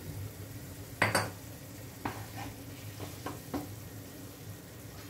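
Wooden spoon stirring and knocking against a frying pan of tomato, pepper and eggplant sauce, several light clacks, with a gentle sizzle from olive oil just added. A sharp, louder knock about a second in, and a low steady hum underneath.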